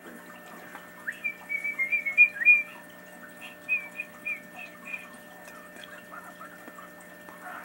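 Short, high, wavering whistled chirps: a quick run of notes about a second in, then a few spaced single notes, over a steady background hum.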